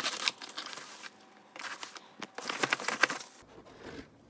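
Crinkling and rustling of packaging being handled, a run of short crackles that dies away about three seconds in.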